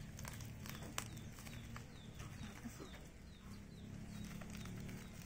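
Small cardboard parcel being handled and picked open, a few sharp clicks and scrapes of fingers and a blade on tape and cardboard. Behind it a bird chirps over and over, short falling chirps two or three a second, and a steady low hum runs underneath.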